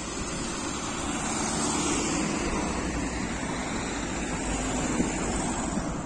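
Mercedes-Benz Sprinter 516 CDI minibus passing close by: its four-cylinder turbodiesel engine and tyres swell as it goes past, then carry on as it pulls away, with street traffic noise underneath. A single short knock about five seconds in.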